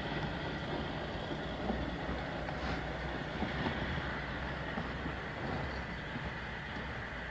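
Kenworth semi-trailer truck's diesel engine running as it pulls a loaded trailer slowly past, a steady low rumble.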